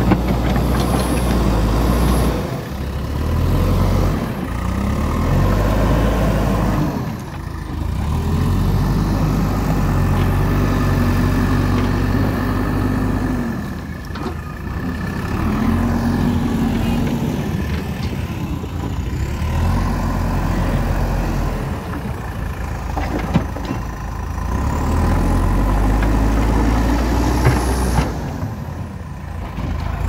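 JCB ecoXcellence backhoe loader's diesel engine working under load, its pitch and level rising and falling every few seconds as it pushes dirt and lifts the front bucket. There are a couple of brief sharp knocks in the second half.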